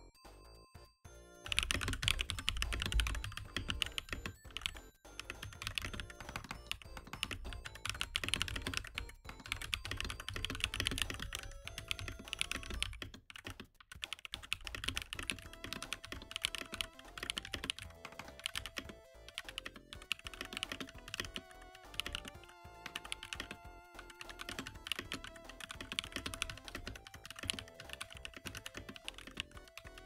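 Mechanical keyboard with Akko V3 Cream Yellow Pro linear switches being typed on fast and continuously, a dense run of key clicks starting about a second and a half in. Video-game music plays underneath.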